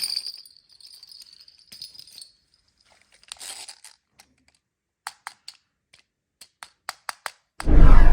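Small hard candies clicking and rattling into a tub, scattered single clicks and short clatters, then a loud rush of many candies poured at once near the end.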